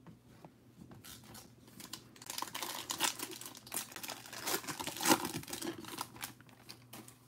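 Foil wrapper of a Panini Prizm basketball card pack being torn open and crinkled by hand, a run of sharp crackles that is loudest in the middle and dies away near the end.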